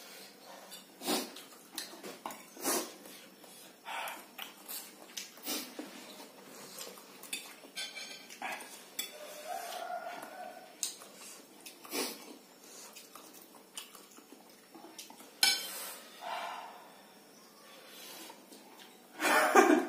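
Metal forks clinking and scraping against plates of noodles during eating, in scattered sharp clicks a second or two apart.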